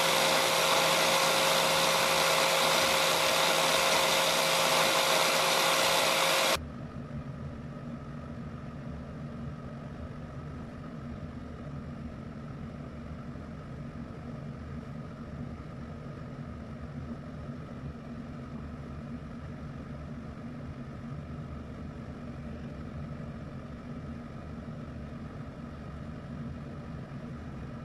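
Angle grinder running steadily with a flat disc spinning, loud with a steady whine, then cutting off suddenly about six and a half seconds in. A quieter, steady low hum follows.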